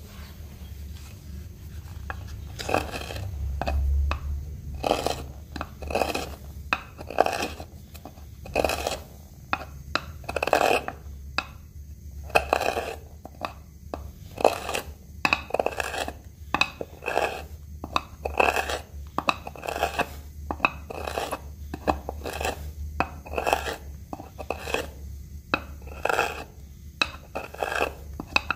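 Bent spoon gouge cutting into a mulberry wood blank by hand, hollowing out a spoon bowl: a steady series of short scraping cuts, about one or two a second, beginning a couple of seconds in.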